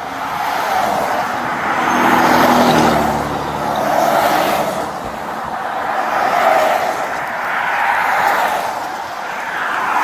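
Highway traffic passing the stopped car, several vehicles going by one after another, each swelling and fading with tyre and wind noise; one of them adds a low engine hum a few seconds in.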